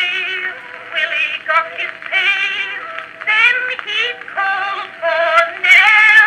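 A woman singing a popular song with strong vibrato, played from an Edison Blue Amberol cylinder record. The sound is thin and narrow, with no deep bass and little treble.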